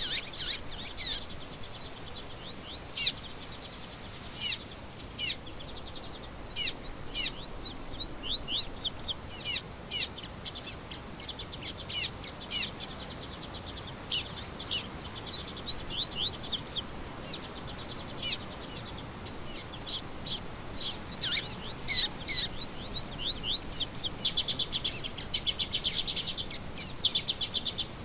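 Songbirds chirping: a steady run of short, sharp, downward-sweeping high notes, with a fast buzzy trill near the end.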